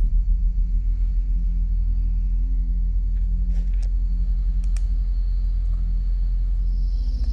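Low, steady rumbling bass drone from a film score, with faint held tones above it; near the end a higher, hissy tone swells in.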